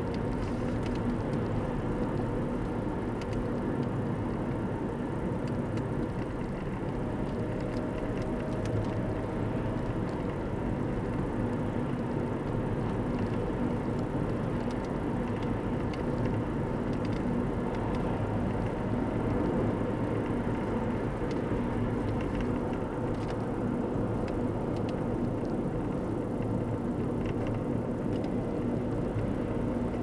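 Steady road and engine noise of a car cruising at a constant speed, heard from inside the cabin.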